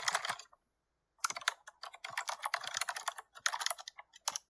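Computer-keyboard typing sound: quick runs of key clicks that stop about half a second in, start again about a second in, and end with a few last clicks near the end.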